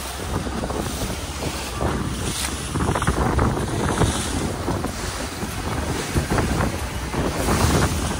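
Small open panga-style boat under way: outboard motor running, water rushing and slapping irregularly against the hull, with heavy wind buffeting the microphone.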